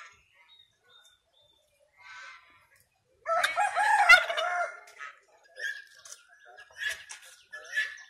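Domestic tom turkey gobbling: one loud rolling gobble about three seconds in, with a few shorter calls after it.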